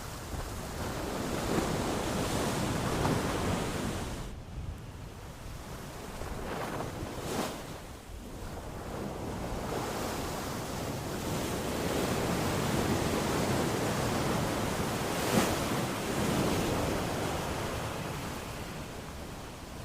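Ocean surf washing in and out: a steady rush of waves that swells and eases over several seconds, with two brief sharper splashes, about seven and fifteen seconds in.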